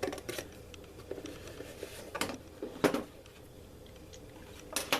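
Knife blade scraping molded plastic flashing off a small outlet panel, in short scraping strokes with a few sharper ones standing out.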